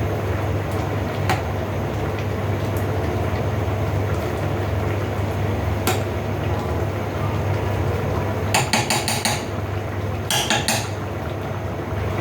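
Steady rumble of a cooking flame turned up high under a simmering pan of coconut-milk stew, with a few single clinks and, near the end, two quick runs of rapid clinks of a utensil against the pan.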